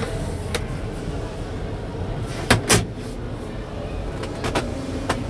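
Plastic dashboard glovebox lid being handled: a light click about half a second in, then two sharp knocks about two and a half seconds in as it is shut, over a steady background hum.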